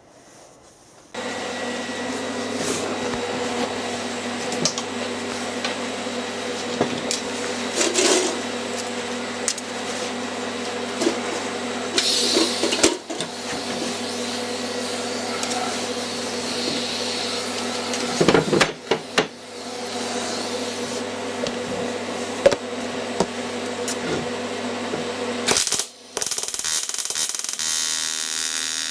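AC TIG welding arc buzzing steadily with a crackling hiss while silicon bronze filler wire is fed into a crack repair on a cast-iron casting. The arc strikes about a second in and drops out briefly twice, near the middle and near the end.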